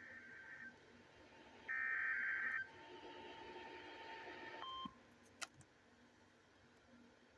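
Emergency Alert System SAME header data bursts from a NOAA Weather Radio receiver: two shrill, warbling digital tone bursts of about a second each, a second apart. A fainter hissing stretch follows and stops about five seconds in, then a single click.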